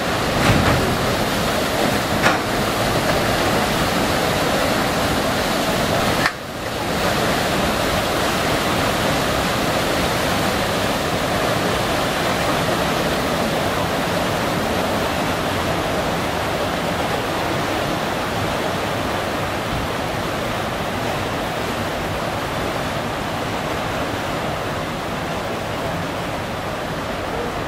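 Paddle wheels of the paddle steamer La Suisse churning the lake as she pulls away, a steady rushing wash of water. Two short knocks sound in the first couple of seconds.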